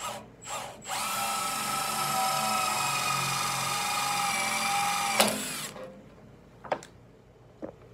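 Cordless drill with a 1/8-inch bit drilling a pilot hole into the steel wall of a barbecue smoker. Two short trigger blips come first, then a steady whine for about four seconds that stops with a sharp click, and two faint clicks follow.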